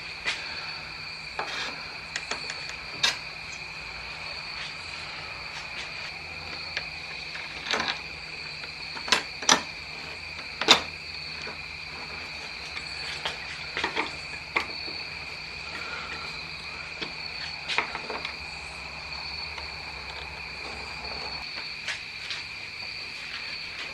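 Scattered clicks and knocks of hardware and metal trim being handled and screwed onto a motorcycle windshield, loudest in a cluster about halfway through, over a steady high-pitched tone.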